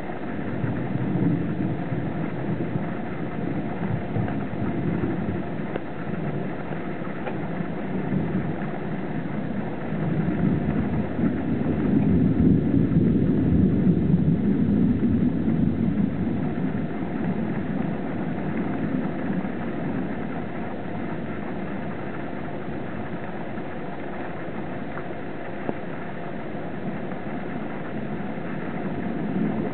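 Thunder rumbling continuously, swelling into a long, louder roll from about ten to sixteen seconds in, then settling back to a steady low rumble.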